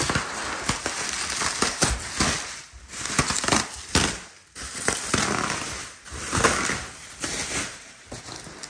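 Plastic bubble wrap rustling and crinkling as it is pulled back and bunched by hand, with many small sharp clicks, in waves that swell and fade every second or two.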